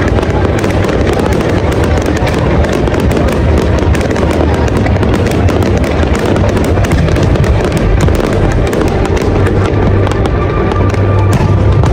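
Large fireworks display: a continuous, dense stream of bangs and crackling with no let-up, with music playing underneath.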